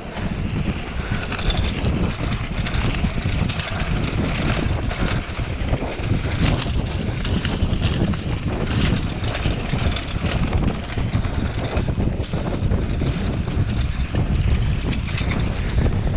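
Wind buffeting the microphone of a camera on a moving mountain bike, with a steady low rumble and frequent small knocks and rattles as the bike rolls over a rough dirt track.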